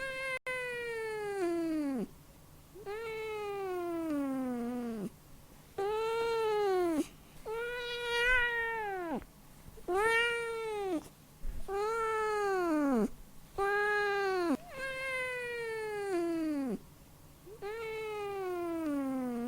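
A domestic cat meowing over and over: about nine drawn-out meows, one every two seconds or so, each one arching and then sliding down in pitch at its end.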